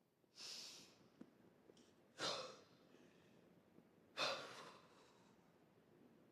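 A young woman's sobbing breaths: three sharp, breathy gasps about two seconds apart, each trailing off.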